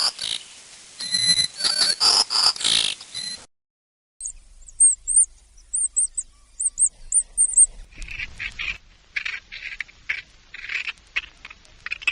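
A sequence of farm animal calls. First come several pitched calls. After a brief gap there is a quick run of high, thin bird chirps, and in the last few seconds a series of short, rapid calls.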